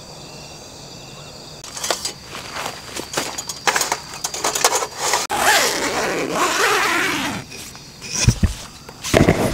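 Night insects chirping steadily. About two seconds in, nylon fabric and sleeping gear start rustling and being handled, with clicks and a few low thumps near the end.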